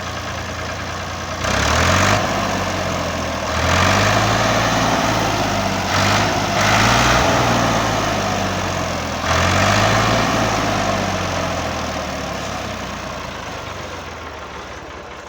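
Tractor engine running, revving up in several surges, then growing steadily fainter over the last few seconds.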